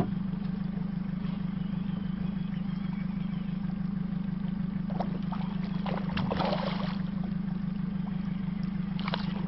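A boat motor runs with a steady low hum. Short water splashes come about five seconds in, again around six and a half seconds, and just before the end, as a hooked smallmouth bass thrashes at the surface beside the boat.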